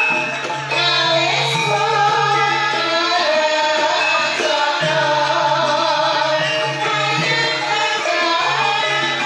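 Javanese gamelan ensemble playing a Banyumasan gending (uyon-uyon): bronze metallophones and gongs ringing over a kendang drum, with a singer's voice winding over the ensemble.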